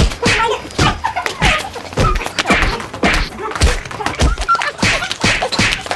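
A string of punch and slap thuds from a brawl, several men hitting someone, landing irregularly about one or two a second.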